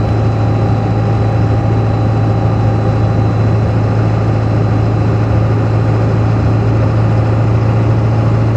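Ford 7.3 L Power Stroke V8 turbodiesel running at a steady speed, with no rise or fall in pitch. The owner cannot identify a knock or chatter from this engine that starts around 1500 rpm and is very noticeable around 1600 rpm.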